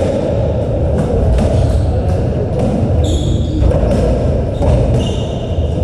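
Racketball rally: the hollow ball struck by rackets and smacking off the court walls about once a second, with shoes squeaking on the court floor over a steady low hum of the hall.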